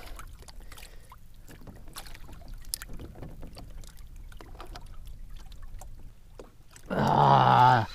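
Small-kayak sounds on the water: a low wash with scattered light clicks and knocks of gear. Near the end comes a long, strained, wordless grunt of effort from a man fighting a hooked fish.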